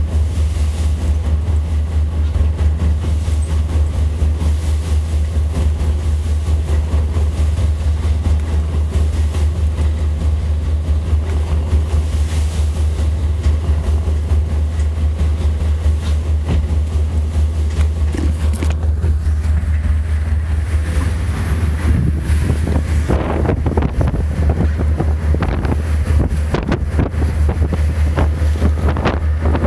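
Tugboat diesel engines running under way with a steady low drone, over wind buffeting the microphone and water rushing alongside; the wind noise picks up in the last several seconds.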